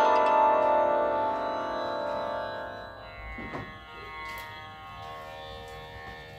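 Swarmandal strings, tuned to the notes of Raag Gaud Sarang with D# as the tonic, ringing out and fading over the first few seconds, with a faint tanpura drone beneath.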